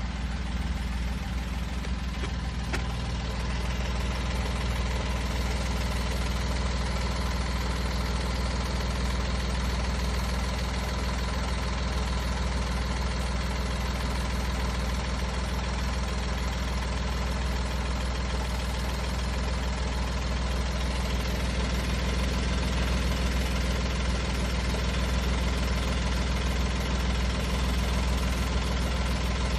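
Daihatsu Hijet Cargo S321V's 660 cc three-cylinder engine idling steadily. It is in its normal state, with none of the abnormal noise that this van has been known to make.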